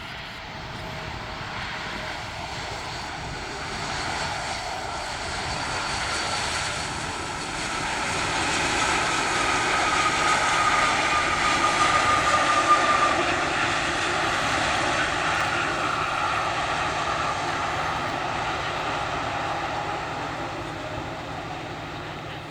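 Boeing 787-10 Dreamliner jet airliner passing on its landing approach. The jet engine noise grows louder, peaks about halfway through with a whine over the rumble, then slowly fades.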